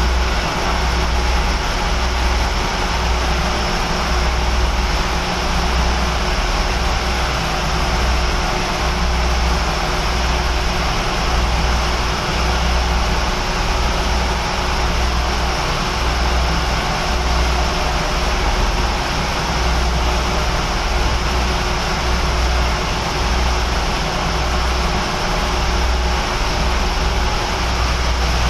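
Powercity marine engine running steadily at cruising speed, a constant low drone with a steady hum over it.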